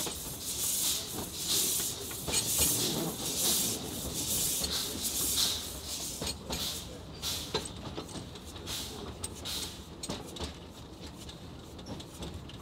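Steam locomotive working slowly, heard from its footplate: a steady rhythm of hissing steam beats, about one a second. The beats die away after about six seconds, leaving faint ticks and rattles as the engine rolls on.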